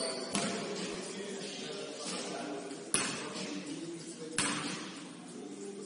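A basketball thudding on a gym floor, three separate hits spread over a few seconds, each echoing in the hall, over a faint murmur of voices.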